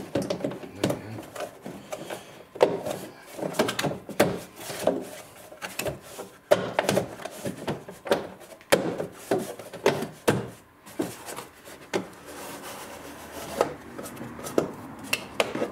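Plastic interior trim at a door opening being handled, fitted and pushed into place by hand, with rubber weatherstripping worked around it: irregular knocks and clicks with rubbing between them.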